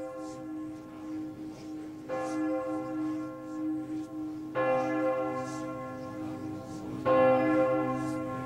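Bell-like tones opening a music track: a new ringing strike about every two and a half seconds, three in all, each a little louder, over a steady low drone.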